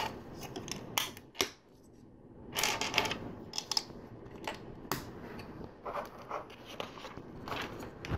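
LEGO plastic bricks and plates being handled and pressed together: scattered small clicks and snaps, with a longer plastic rubbing rustle about two and a half seconds in.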